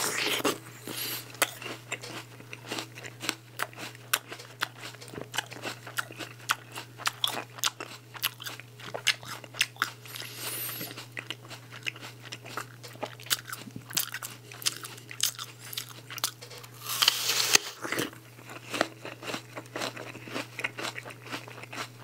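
Crisp bite into a whole raw red apple, the flesh very firm, followed by close-up crunchy chewing. There is another loud crunch about seventeen seconds in.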